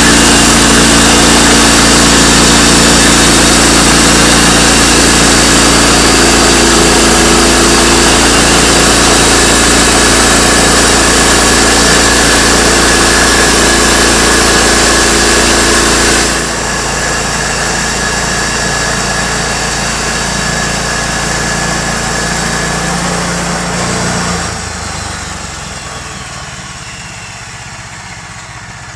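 Sawmill's gas engine running loud and steady, with a sudden drop in level about two-thirds of the way through and another near the end as it winds down.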